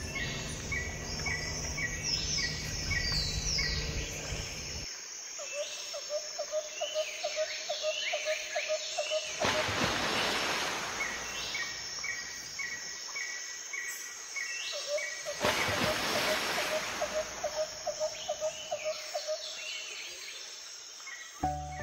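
Bird calls, falling whistles and rows of quick chirps, over a pulsing trill. The same sequence comes round again about ten seconds later, as in a looped nature-sound track. Two rushes of hiss pass through, and a low hum cuts off about five seconds in.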